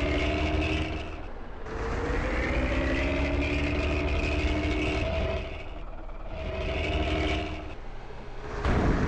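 A bus's multi-tone air horn sounding in four blasts, each sliding up in pitch as it starts before holding a chord; the second is the longest, at about three and a half seconds, and the last starts near the end. A low engine rumble runs underneath.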